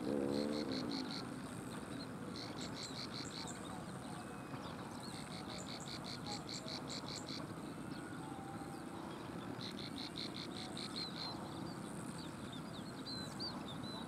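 Plain prinia singing: about five runs of rapid, evenly repeated high notes, each run a second or so long, with softer chirps between them. A low humming tone bends in pitch and fades out within the first second.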